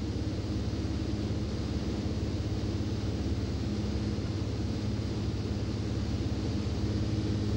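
Steady drone of a light propeller aircraft's engine, heard from on board while flying.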